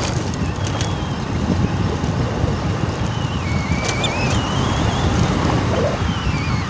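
Wind rushing over the microphone and a steady low road rumble from a moving vehicle. A thin, wavering high tone comes in about halfway through.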